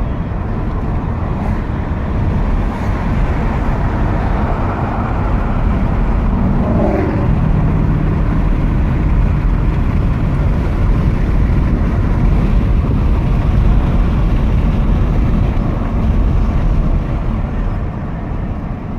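Road and engine noise inside a moving car: a steady, loud rumble with a deep low end.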